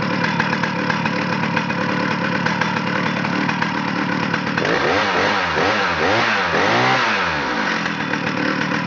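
Stihl 075 AVE's 111cc two-stroke chainsaw engine running steadily, then revved up and down about four times, each rev rising and falling in pitch, before settling back to a steady run.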